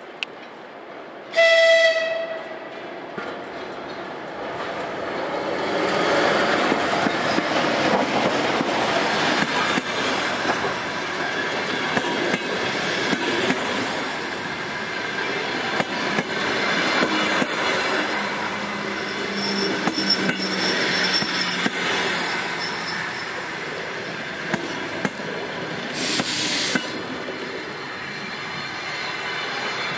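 A ChS2T electric locomotive gives one short horn blast as it approaches. Then it and its passenger coaches roll past close by: a steady rumble of wheels with clickety-clack over the rail joints, and a brief burst of noise near the end.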